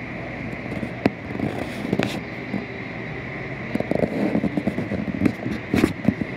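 Steady hiss of heavy rain and wind with a faint steady high tone, broken by knocks and rustles about one and two seconds in and a run of them through the last two and a half seconds.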